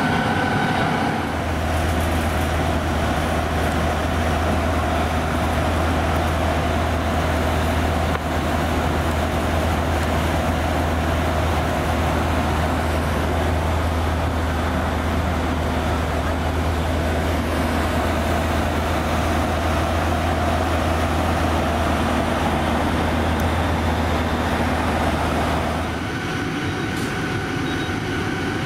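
An emergency vehicle's engine idling close by: a steady low hum that starts about a second in and drops away near the end, over steady engine noise.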